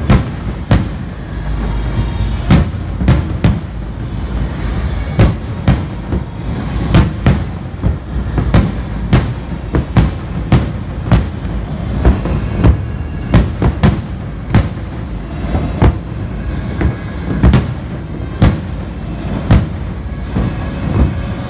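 Aerial firework shells bursting in a display: a long irregular series of sharp bangs, about one or two a second, over a continuous low rumble.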